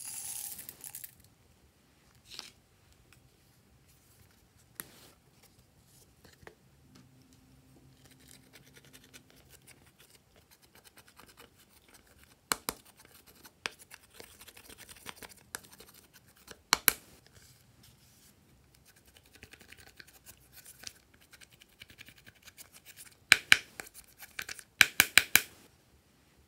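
Small dry craft sounds over glass slime trays: a brief rustle of sprinkles shaken out of a small plastic container at the start, then faint scratching of a cotton swab on a pressed eyeshadow palette with scattered sharp clicks, and a quick run of sharp taps near the end.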